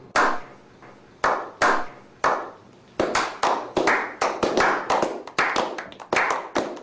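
A slow clap from a small group: single hand claps about a second apart that quicken into faster, overlapping clapping from a few people.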